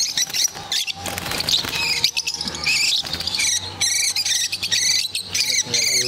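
Caged lovebirds chirping shrilly in a rapid run of short repeated calls, which thicken in the second half, with scattered clicks and rattles from the wire cages as the birds are handled.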